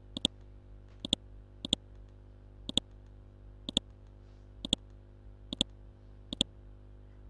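Computer mouse button clicked about once a second, eight times in all. Most clicks are a quick press-and-release pair of ticks. A steady low electrical hum runs underneath.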